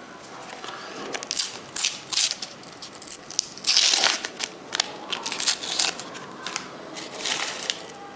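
Panini sticker packet being torn open and its wrapper crinkled and crumpled by hand: a run of irregular crackles, loudest about four seconds in.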